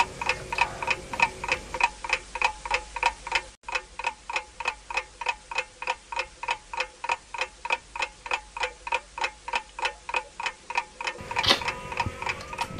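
Steady clock-style ticking of a countdown timer, about four ticks a second, marking the time limit of an eating challenge.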